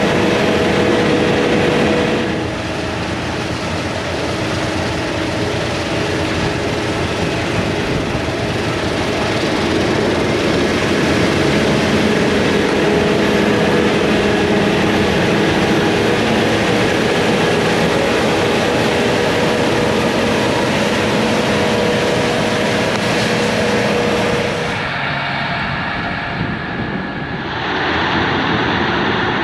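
Heavy diesel farm machinery running steadily, with a constant engine hum. The sound shifts abruptly about two seconds in and again near the end.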